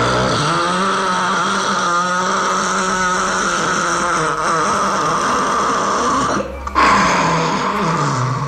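A person snoring loudly: one long snore of about six seconds, a brief break, then another snore begins.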